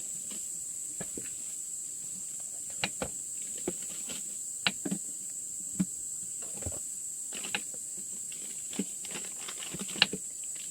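Scattered taps and clicks of food preparation, a knife and utensils on a board and pot, about a dozen at uneven intervals with the loudest near the end. Under them runs a steady high insect chirring.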